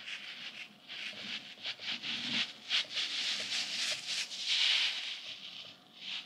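Stretchy goose-shaped squeeze toy from Daiso being squeezed and pulled out long in the hands, its soft surface squishing and rubbing against the fingers in a run of uneven swishing strokes, loudest about four and a half seconds in.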